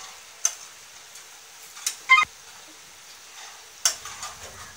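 Tomato and green-chilli masala sizzling softly in a cooking pot, with a few sharp clicks and one ringing metal clink about two seconds in.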